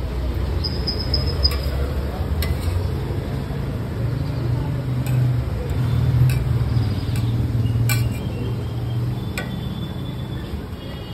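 A metal spatula scraping and clinking against a flat street-stall griddle and a steel pot as fried chickpeas are scooped off: scattered sharp metal clicks, with a short high scraping squeal about a second in. Under it runs a steady low hum of street traffic.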